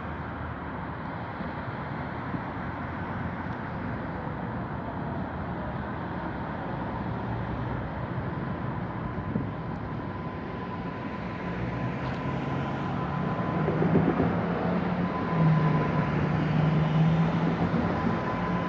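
MBTA Green Line light-rail train of Type 7 cars approaching along the track. Its motor hum and a steady whine grow louder over the last several seconds, over the steady noise of street traffic.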